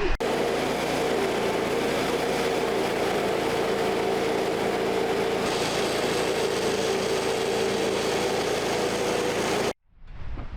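Small portable sawmill's engine running steadily under load, with a brighter hiss joining about halfway through. The sound stops suddenly near the end.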